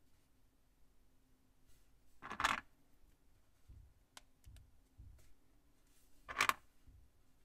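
Small plastic Plus-Plus building pieces being handled and pressed together: two short, louder clicks about four seconds apart, with faint taps between.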